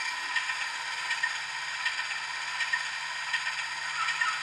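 Sound-decoder recording of a Class 24's Sulzer diesel idling, played through a model locomotive's small speaker: a low steady hum with a light regular ticking about twice a second. Near the end a run of short, quick falling chirps joins in.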